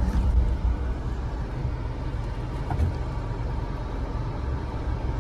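Steady low rumble of a vehicle running, heard from inside it, with no sudden changes.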